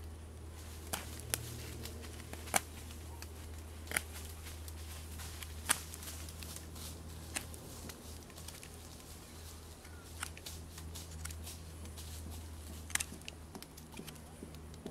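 Knife carving a wooden stick by hand: scattered short scrapes and sharp clicks of the blade biting and shaving the wood, a few seconds apart, over a low steady hum.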